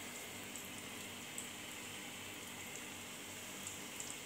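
Flour-and-egg-coated chicken nuggets frying in hot oil in a frying pan: a steady, faint sizzle, with a couple of small pops.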